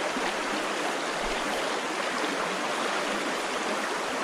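Shallow, rocky trout creek running over riffles: a steady, even rush of flowing water.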